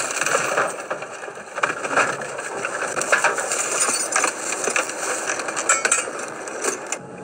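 A car ploughing off the road into roadside bushes and small trees, heard from the dashcam inside: branches and twigs scraping and snapping against the body and windshield in a dense crackle, with many sharp clinks and knocks as the car comes to a near stop.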